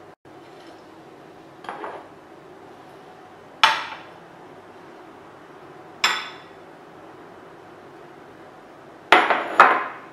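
Glass mixing bowls knocking and clinking against each other and the worktop: a faint knock, then single sharp clinks about three and a half and six seconds in, and two quick clinks close together near the end as the emptied bowl and spatula are put down.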